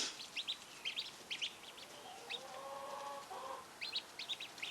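Ducklings peeping: many short, high peeps, thinning out in the middle and picking up again near the end.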